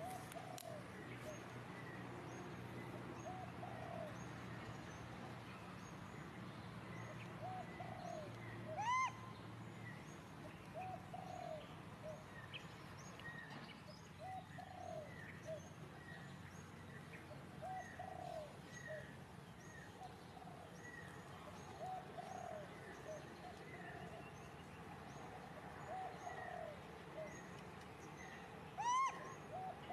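An animal repeating short, high, arching calls every second or two, with two louder calls that sweep upward, one near the middle and one near the end.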